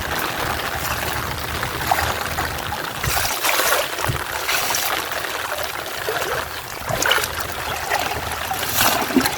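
Water trickling and splashing, with several louder splashes spread through.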